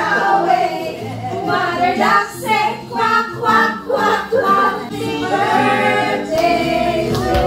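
A small group of voices singing a birthday song together, unaccompanied, in steady even syllables.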